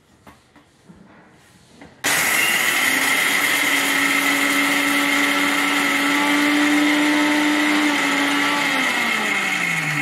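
Electric mixer grinder with a steel jar grinding dry-roasted peanuts into a coarse powder. A few light knocks as the jar and lid are set in place, then about two seconds in the motor starts abruptly and runs loud and steady; near the end its pitch falls as it slows down.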